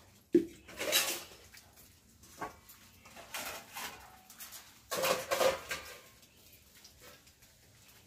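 Stainless-steel dishes and pots being washed by hand: a sharp metal clank near the start, then several bursts of scrubbing, scraping and clattering of steel utensils, some with a brief metallic ring.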